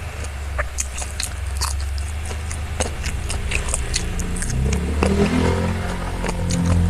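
Close-up crunchy eating: irregular, crisp crackling bites and chews of crunchy food, over a steady low rumble. Low held tones come in over the second half.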